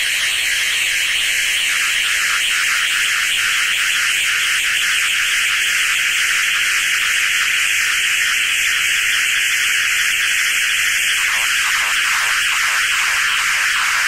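Plasma globe played by hand as an electronic instrument (a plasmaphone), giving a dense, steady, high-pitched electrical buzzing hiss. From about eleven seconds in, a faint rapid pulsing joins lower down.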